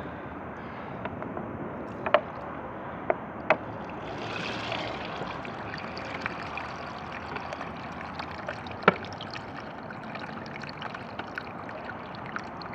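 Forward-trap toilet flushing: water rushing and gurgling through the bowl as the siphon jet pulls it down, swelling a little about four seconds in. A few sharp clicks sound over it.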